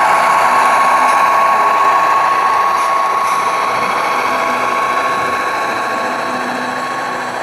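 A pair of HO scale model diesel locomotives running along the track, with a steady high mechanical whine from their motors and gearing over the rolling noise of the wheels, slowly fading as they move away.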